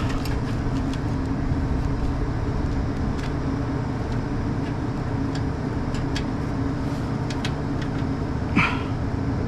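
Steady low mechanical hum with a faint steady tone, and a few light clicks and taps over it.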